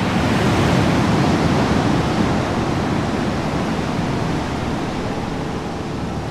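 Ocean surf on a beach: a dense, steady rush of breaking and washing waves that starts abruptly and slowly eases.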